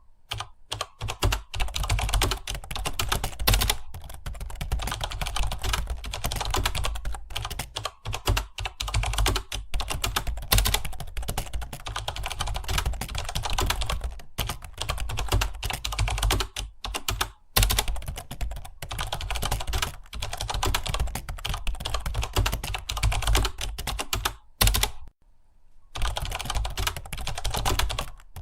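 Computer keyboard being typed on fast and without let-up, a dense stream of key clicks with one brief pause about 25 seconds in.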